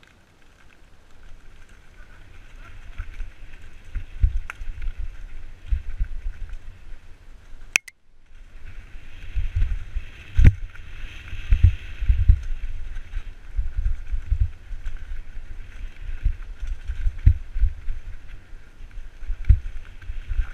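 Wind buffeting a helmet-mounted camera's microphone over the rumble, rattle and knocks of a mountain bike running fast down a bumpy dirt forest trail. A sharp click and a brief drop-out come about eight seconds in.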